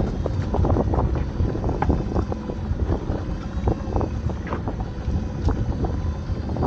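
Wind buffeting the microphone on a small open boat, with a heavy low rumble. Scattered clicks and knocks come as a pot line is hauled in by hand over the side.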